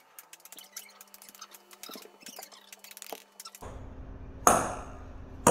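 A ping pong ball hit with a paddle and bouncing on wooden floorboards: two sharp clicks, the first about four and a half seconds in and the second near the end.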